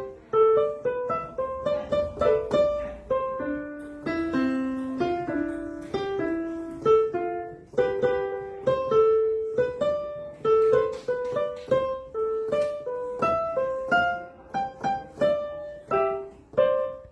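Background instrumental music: a light keyboard melody of separate notes, each struck and quickly fading.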